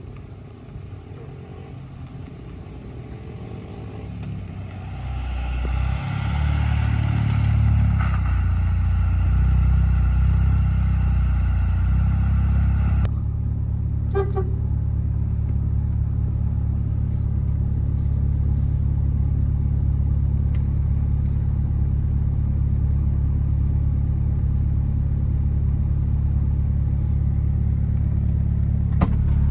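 Car driving: low engine and road noise that builds over the first few seconds, then, after an abrupt cut, a steady low engine hum.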